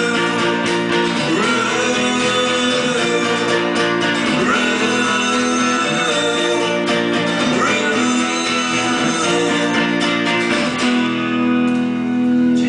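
A live rock band playing the instrumental ending of a song: strummed guitars holding chords at a steady loud level.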